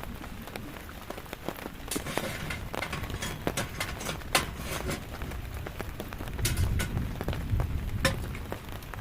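Rain falling, with many irregular sharp drips and taps and a low rumble about six and a half seconds in.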